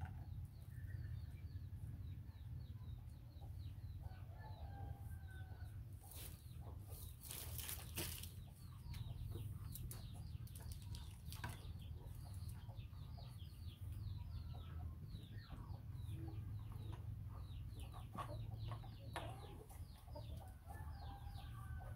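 Chickens clucking in the background, with many short, high, downward-sliding peeps, over a steady low hum. A few brief scratchy noises come about six to eight seconds in.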